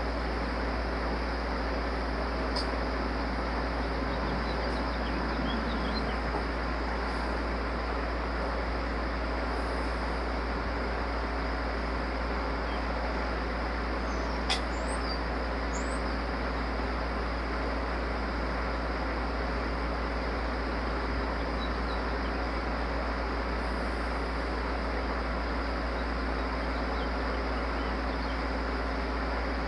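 Steady low hum and hiss of background noise, with one sharp click about halfway through and a few faint, short, bird-like chirps around it.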